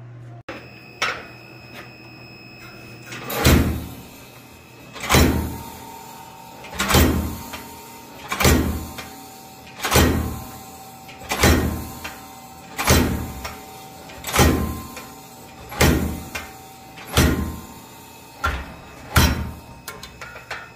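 About a dozen heavy forging blows on a hot steel block as it is shaped, evenly spaced at about one every second and a half.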